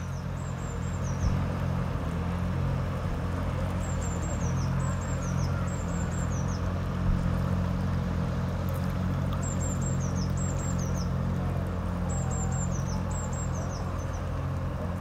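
Small outboard motor pushing an inflatable dinghy, a steady low hum that holds even throughout. A songbird sings short, high, falling phrases over it every few seconds, and there are two brief knocks, about a second in and about seven seconds in.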